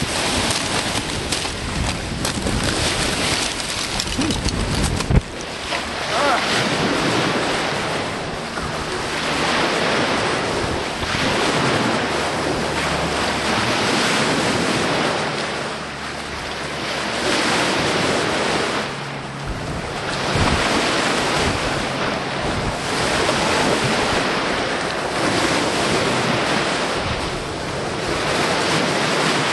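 Choppy lake waves washing onto the shore, a steady rushing noise that swells and ebbs every few seconds. Wind buffets the microphone with a low rumble for the first five seconds, ending in a sharp knock.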